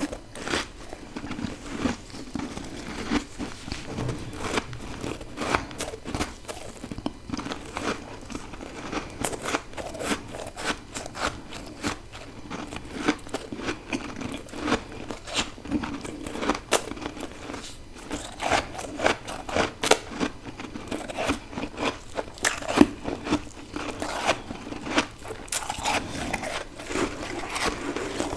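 Close-up crunching of frozen freezer frost and ice being bitten and chewed, with many crisp, irregular crunches several times a second.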